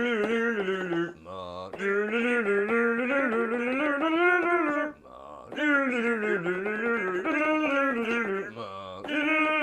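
Christmas carolers singing in male voices, long drawn-out notes in phrases of a few seconds each, with short breaks between them.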